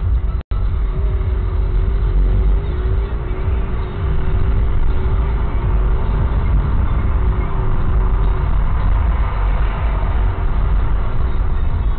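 Car engine and road rumble heard inside the cabin as the car pulls away from a stop and speeds up, getting louder about four seconds in. The sound cuts out completely for a split second about half a second in, and a faint wavering tone runs through the middle.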